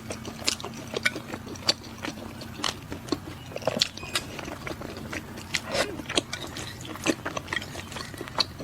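Biting into and chewing crisp nang flatbread close to the microphone: a run of sharp, irregular crunches and crackles.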